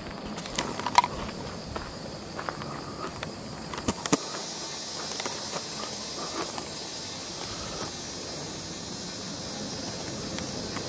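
Footsteps and camera handling: a few sharp knocks and scuffs in the first four seconds, then a steady high-pitched hiss.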